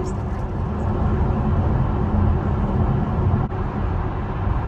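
Steady road and tyre rumble inside a moving electric car's cabin, with a faint steady hum.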